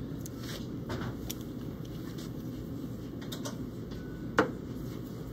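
Steady low room hum with a few light clicks and taps, the sharpest a little over four seconds in.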